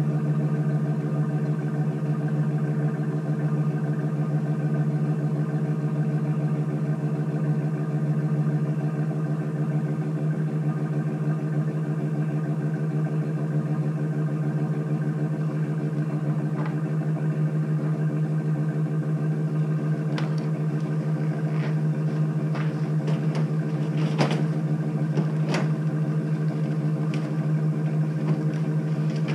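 An engine idling steadily, with a few sharp knocks and clatters over the last several seconds.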